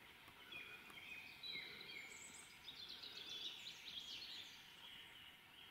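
Faint songbirds singing: scattered short whistled chirps and trills, thickening into a denser twitter in the middle, over a quiet hiss.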